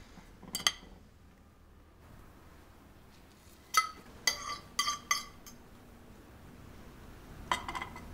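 Plates and cutlery clinking: a handful of separate sharp clinks, each with a brief ringing tone, spread over several seconds with quiet room tone between.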